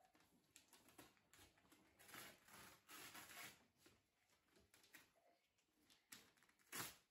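Faint rustling and crinkling of gift wrapping paper being torn and handled, with light knocks and clicks from the present's box. A short, louder burst of crinkling comes near the end.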